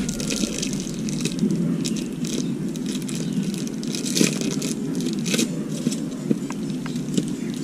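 Crackling, scraping handling noise of an appliance's power cord and earth wire being coiled by hand, with scattered clicks over a steady low background noise.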